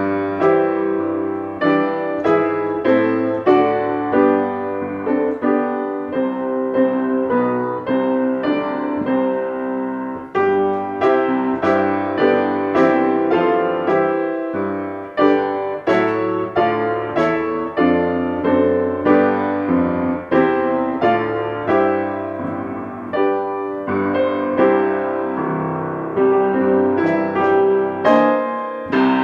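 Solo piano playing a gentle, steady melody with chords, notes struck and left to ring.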